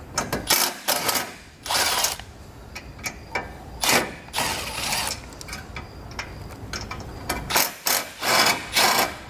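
Milwaukee M12 Fuel cordless impact tool hammering in several short bursts with pauses between them, backing out 13 mm bolts.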